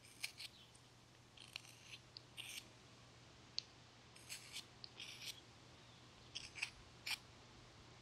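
Flexcut Detail knife paring thin shavings off a basswood carving: a series of faint, short, irregular slicing strokes, each a brief high scrape, as the hard edges are rounded off.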